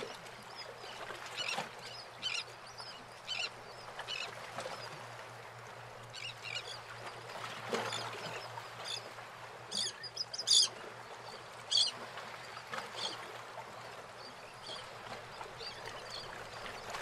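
Short chirping calls in scattered clusters, a few of them louder about ten to twelve seconds in, over a steady low hum and faint hiss.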